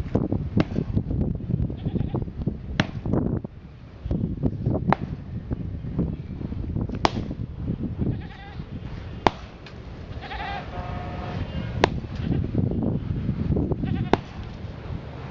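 Old, cracked concrete driveway slab being broken up with a hand tool: seven sharp metal-on-concrete strikes about two seconds apart, amid scraping and crunching of broken concrete. A brief high cry sounds in the background about ten seconds in.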